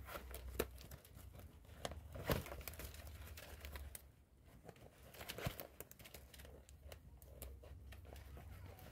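Palm-leaf strips rustling and crackling softly as they are bent down and pulled into a woven palm chair cover, with scattered sharp crackles.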